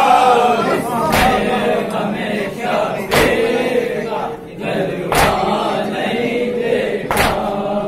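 Men chanting a Shia mourning salaam in chorus, led by one voice. A loud beat of palms striking chests in unison (matam) comes about every two seconds, keeping time with the chant.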